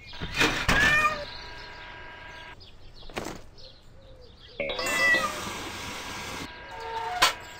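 Animated end-screen sound effects: two rushing whooshes, each carrying short high calls that bend in pitch, with a brief swish between them and a sharp hit near the end.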